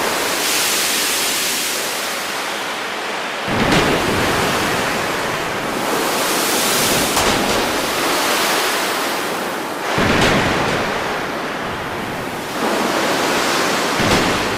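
Loud, steady rushing noise, like a storm effect on a film soundtrack, that surges up several times.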